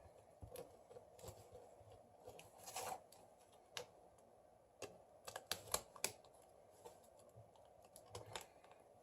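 Faint, irregular light clicks and taps of small tools and phone parts being handled during a smartphone reassembly, with a cluster of quicker clicks about five to six seconds in and a brief rustle near three seconds.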